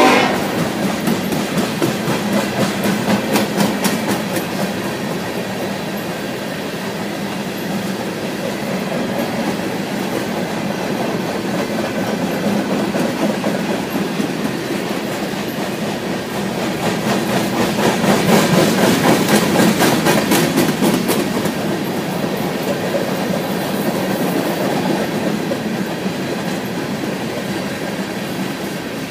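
BNSF freight train of covered hopper cars rolling past, wheels clicking over the rails in an uneven clickety-clack over a steady rumble. It swells louder for a few seconds past the middle, then eases off.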